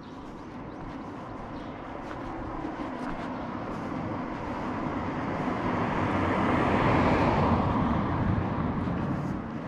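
A vehicle passing close by: its noise builds for several seconds, is loudest about seven seconds in, then falls away near the end.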